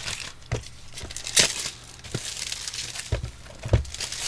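Packaging of a boxed soldering iron being handled and unwrapped: crinkling and tearing, with several light knocks of the box being moved.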